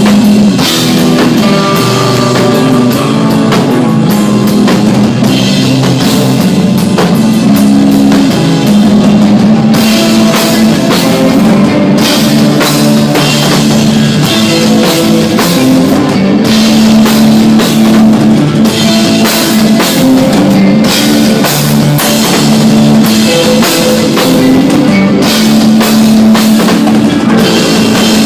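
A rock band playing live and loud: drum kit, electric guitar and bass. The drums, with cymbal hits, pick up and grow busier about ten seconds in.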